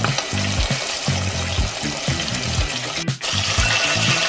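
Breaded chicken deep-frying in hot oil, a steady sizzle, under background music with a repeating bass line. There is a brief dropout about three seconds in.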